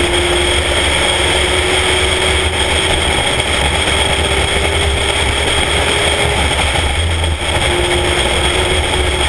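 Spec Miata race car's four-cylinder engine running at speed under load, its note climbing slowly, with a short drop in level about seven seconds in after which the note comes back lower. Heavy wind rumble on the outside-mounted microphone runs underneath.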